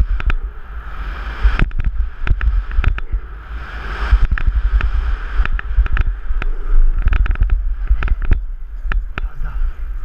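Downhill mountain bike ridden fast over rough dirt, heard from a helmet-mounted camera: heavy wind rumble on the microphone with frequent sharp clatters and knocks from the bike and tyres over the bumps.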